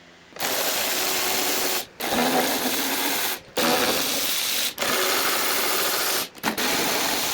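A power driver running in about five bursts of a second or so each, with short pauses between, undoing fasteners.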